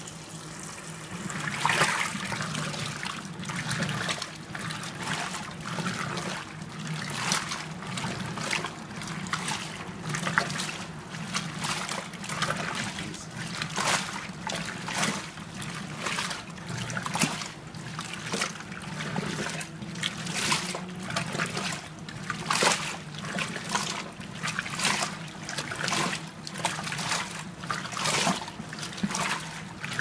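Danby DWM17WDB portable top-load washer agitating a full load: water swishing and splashing in the basket in regular surges, a little under two a second, as the agitator swings the clothes back and forth, over a low steady motor hum. The wash action picks up a couple of seconds in.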